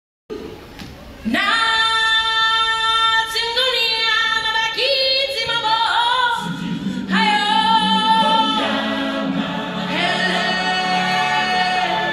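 Live stage singing: a strong solo voice holds long notes with vibrato, largely unaccompanied, starting about a second in. About halfway through, a lower held part joins beneath it.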